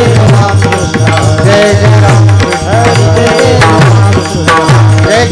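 Devotional kirtan music: a hand drum plays a steady rhythm of deep bass strokes under a gliding melodic line, with sharp high metallic clicks.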